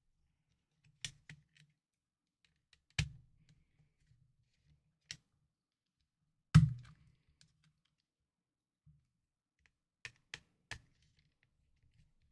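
Scattered clicks and taps of small plastic handheld-console parts and tools being handled and set down on a work surface, with two heavier knocks, the louder about halfway through.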